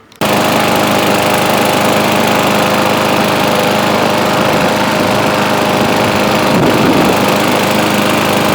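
Gasoline lawn mower engine running steadily, cutting in abruptly right at the start.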